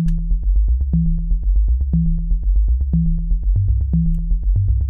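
Ableton Wavetable synthesizer on a plain sine oscillator, played by a step sequencer: short low notes at about eight a second, each starting with a small click. The eight-step pattern repeats about once a second, with a lower note entering twice near the end.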